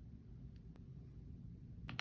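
Quiet room tone with a low hum and two faint ticks. Just before the end, keystrokes start clacking on a Lumino 75 mechanical keyboard.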